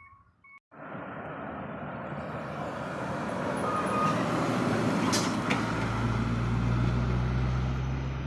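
A heavy road vehicle coming up and passing: tyre and engine noise that starts abruptly about a second in and swells, with a low engine drone growing loudest over the last few seconds.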